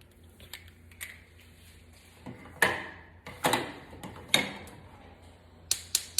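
Kitchen items being handled: three sharp knocks spaced about a second apart, then a quick run of clicks near the end.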